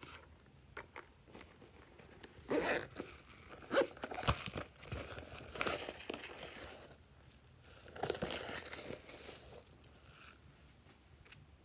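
Dry, crinkly flakes crunching and rustling as they are tipped from a pouch and crumbled by hand onto slime. The sound comes in several irregular bursts with small clicks.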